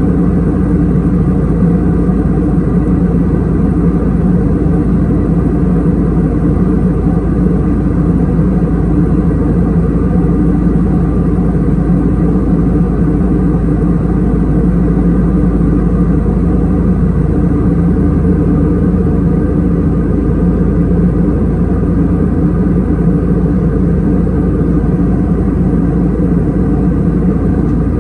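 Cabin noise of an Airbus A320 in flight on descent: a steady low drone of engines and airflow with an even hum, no changes.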